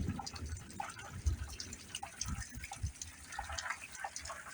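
Light rain dripping and pattering in irregular drops, with a couple of soft low thumps.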